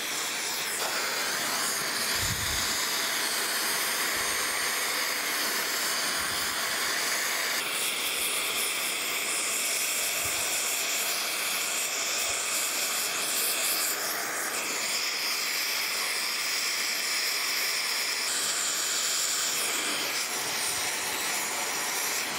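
Gas torch flame hissing steadily against a bearing shell, melting the old babbitt out of it. The hiss shifts in tone a few times.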